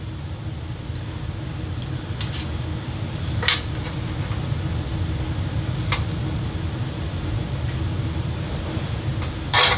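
Metal mounting tabs of a bathroom fan housing being bent and handled: a few light metallic clicks, with a louder clatter near the end, over a steady low hum.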